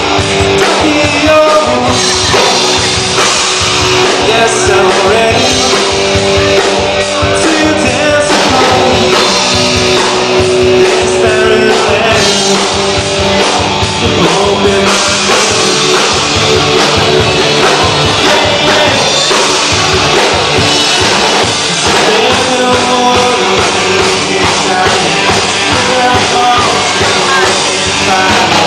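Rock-style band music with a lead voice singing over electric guitar and drum kit, loud and continuous.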